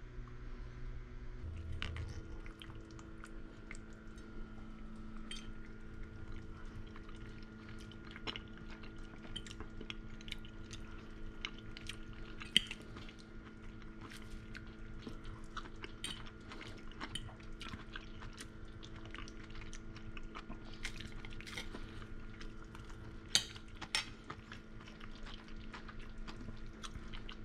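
Cutlery clicking and scraping on dishes, many small clinks over a steady low hum, with a few louder clinks scattered through.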